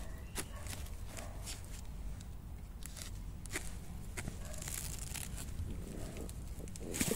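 A metal digging blade scraping and prying in dry soil around a bamboo shoot, with scattered crunches of earth and dry bamboo leaves. The loudest scrape comes near the end.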